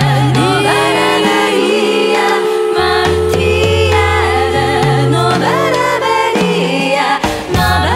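Live music: a sung, chant-like vocal line holding one long note through the middle, over a low drone, likely the credited didgeridoo.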